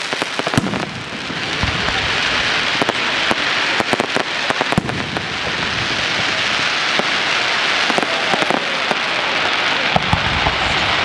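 Aerial fireworks shells bursting overhead: a continuous dense crackle from the falling stars, with many sharp bangs and pops scattered through it.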